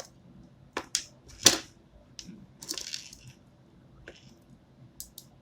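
Telephone cable being cut and handled with a cutting tool: a series of sharp clicks and snips, the loudest about one and a half seconds in, with a short scraping rustle around three seconds in.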